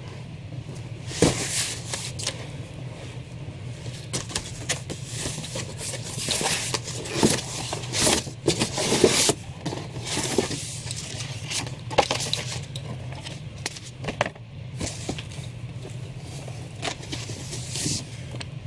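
A cardboard shipping carton being opened and unpacked by hand: flaps scraping and knocking, with irregular rustling and sliding as the contents are handled. A steady low hum runs underneath.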